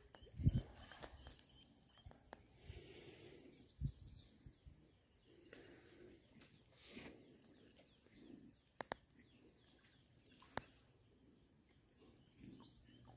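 Quiet outdoor ambience with faint bird chirps and soft stirring of muddy water as Banni water buffaloes wallow. There is a dull thump about half a second in, another near four seconds, and a few sharp clicks late on.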